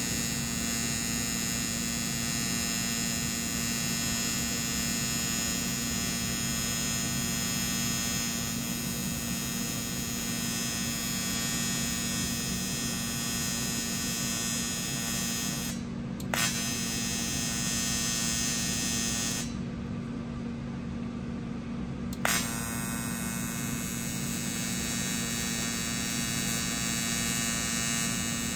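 AC TIG welding arc on thin aluminum buzzing steadily at full amperage while the welder feathers the foot pedal, barely keeping the arc alive as the thin sheet heats up. The buzz breaks briefly about 16 seconds in. Later the arc goes out for a couple of seconds, leaving only the machine's lower hum, then restrikes with a sharp crack.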